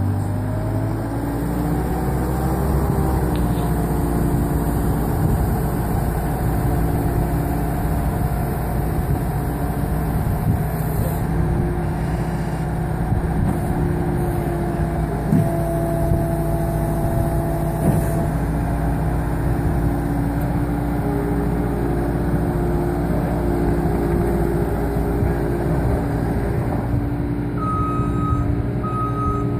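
New Holland L230 skid steer's 84-hp diesel engine running. Its pitch rises over the first few seconds, then holds steady at high revs. Near the end a few short beeps sound from its back-up alarm.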